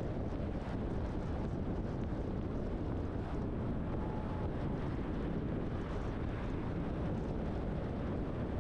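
Steady rumbling road noise from a truck on the move, with engine, tyre and wind noise blended into an even din.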